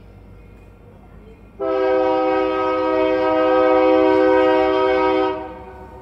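Locomotive air horn sounding one long, steady blast of nearly four seconds, starting about one and a half seconds in and cutting off shortly before the end, over the low rumble of a train.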